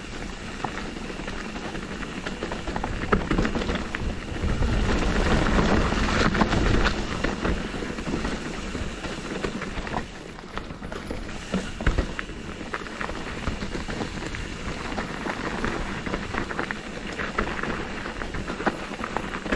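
Footsteps scuffing and crunching along a dirt trail, with many small clicks of loose stones and a louder rumbling stretch about five to seven seconds in.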